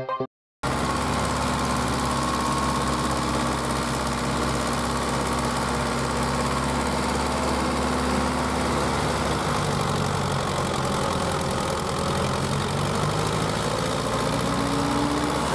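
Diesel tractor engines running steadily under load in mud, with a slight shift in engine pitch about ten seconds in and a rise near the end.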